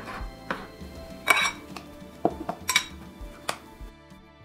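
Kitchen knife cutting cooked beetroot on a plastic cutting board: a handful of irregular knocks and short scrapes, over background music. The knife sounds stop near the end and the music carries on alone.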